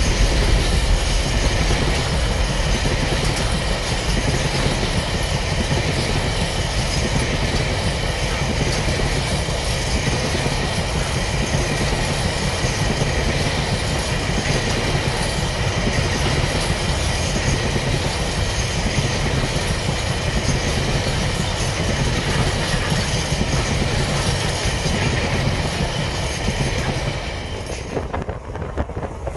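Container wagons of a freight train rolling past on the rails: a steady rumble of wheels with a continuous high-pitched ringing from the wheels. Near the end it cuts to a quieter shot with wind noise on the microphone.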